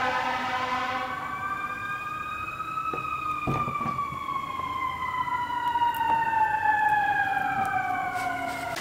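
Emergency vehicle siren wailing: its pitch rises slowly for about three seconds, then falls steadily for the rest of the time. A second, fainter gliding tone crosses it near the end, and a couple of light knocks come about three and a half seconds in.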